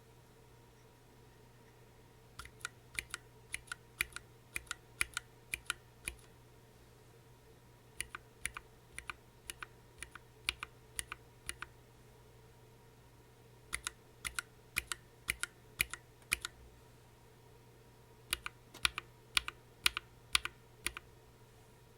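Typing on a Planck Hi-Pro mechanical keyboard with OA switches and PBT keycaps: keystroke clicks in four short runs of a few seconds each, with pauses between.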